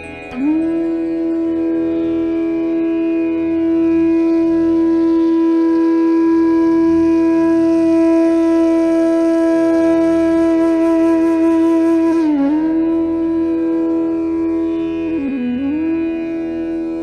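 Instrumental music in which a wind instrument holds one long, steady note, dipping briefly in pitch about twelve seconds in and again about fifteen seconds in before settling back on the same note.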